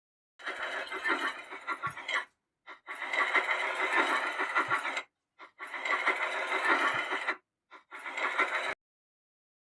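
Rattling, clattering train sound effect played in four separate bursts of one to two seconds, each cut off abruptly, with two short blips between them.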